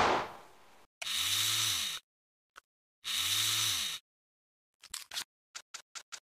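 A gunshot fading out, then two swooshes of about a second each that rise and fall in pitch, then a quick run of small metallic clicks as the COP .357 derringer's barrel block tips open.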